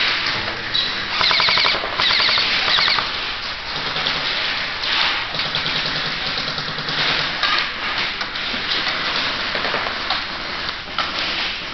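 Airsoft rifles firing in rapid full-auto bursts, two strong back-to-back bursts about a second in, then scattered shots and short bursts.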